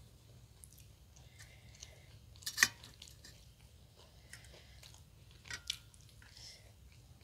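Close-miked chewing and mouth sounds of people eating sattu puri with their hands. A few sharp clicks cut through: the loudest a little over two and a half seconds in, and two smaller ones between five and six seconds.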